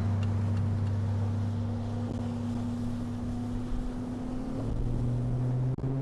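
Bass boat's outboard motor running at speed, a steady drone with wind rushing past; its pitch steps up about two-thirds of the way through and again near the end.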